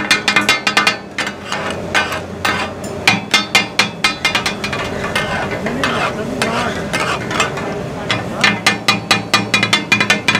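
Steel chopping blades clanking rapidly against a large iron griddle as goat offal is minced and fried for taka-tak. The clatter thins out in the middle, where the meat sizzles under a cloud of steam, then comes back fast and dense about eight seconds in.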